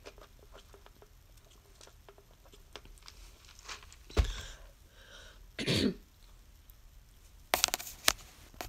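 Faint sipping through a straw, then a sharp thump about four seconds in and a woman clearing her throat once near six seconds. A few sharp clicks and knocks follow near the end as the phone is handled.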